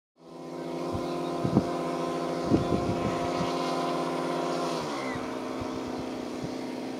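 Engines of a radio-control model DC-3 running steadily on the ground, their pitch dropping a little about five seconds in as the throttle eases. Gusts of wind buffet the microphone in the first few seconds.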